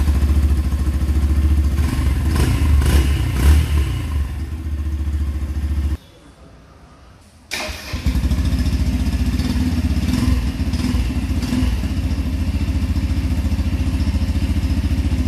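Yamaha FZ-X's single-cylinder engine running, its note rising and falling a few times in the first seconds. It stops about six seconds in, is started again about a second and a half later, and settles into a steady idle.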